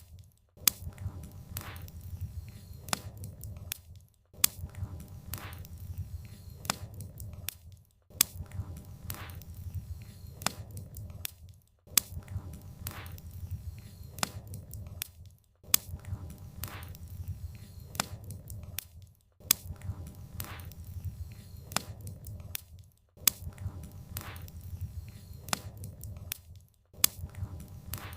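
Wood fire crackling and popping, with sharp snaps over a low rumble. The sound cuts out briefly about every four seconds, as the same short stretch repeats.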